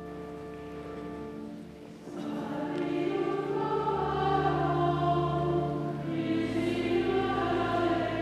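Choir singing a hymn over held instrumental chords, the voices swelling in about two seconds in.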